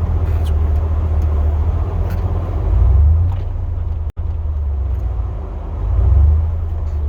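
Pickup truck heard from inside the cab: a steady low engine and road rumble that swells twice, about three and six seconds in, with a momentary cut-out of all sound around the middle.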